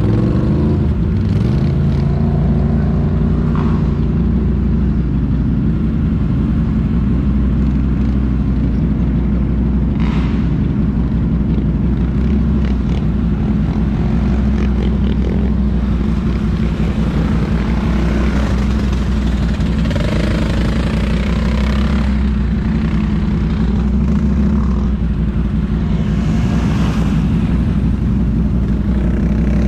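ATV engine idling steadily close by, with the engines of other ATVs running in the background.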